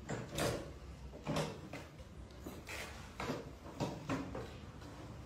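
A string of faint, short knocks and rustles, about ten of them, scattered irregularly with no steady rhythm.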